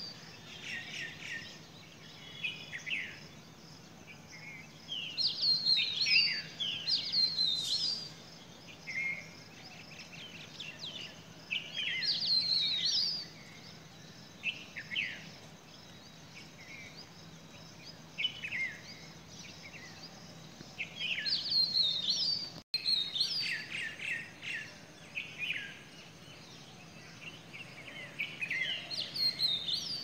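Songbirds of the dawn chorus singing: bursts of quick chirps and short gliding whistled notes every few seconds, over a faint steady low hum.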